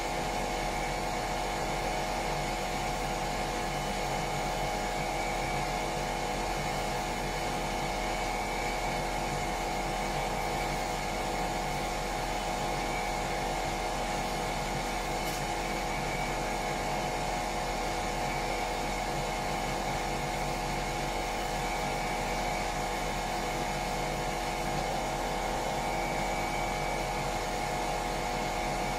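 Power sander running steadily on the bilge surface, a constant whine with no pauses.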